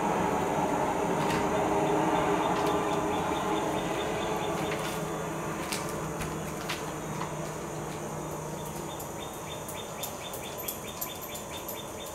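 Outdoor ambience: the low rumble of a distant vehicle slowly fading away, with two quick runs of evenly spaced high chirps, the second in the latter half.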